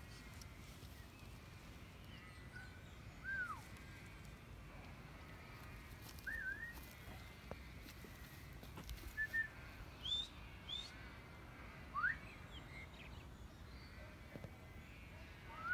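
A sheepdog handler's whistle commands to a working border collie: a string of short whistled notes, some rising and some rising then falling, given every few seconds.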